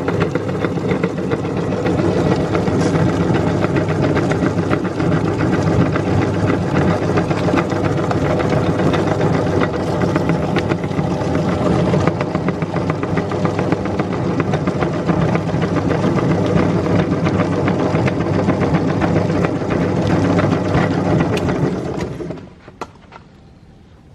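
Electric meat grinder running steadily, its motor hum overlaid with a dense crackling as items are ground, then stopping about 22 seconds in.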